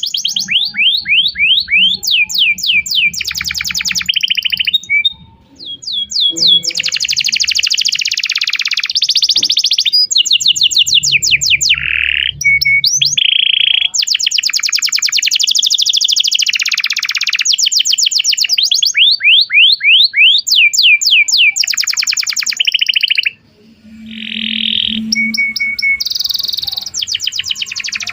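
Domestic canary singing a long song of rapid trills and fast series of falling whistled notes, high-pitched and loud, pausing briefly about five seconds in and again after about twenty-three seconds.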